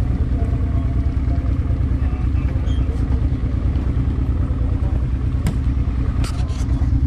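Motorcycle engine idling steadily, a low even rumble with no revving.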